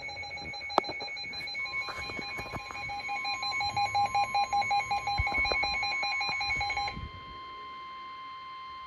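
Weather radio alert for a severe thunderstorm warning: rapid electronic alarm beeping with a sharp click just under a second in, over a steady warning tone that begins about a second and a half in. The beeping stops about 7 s in, leaving the steady tone alone.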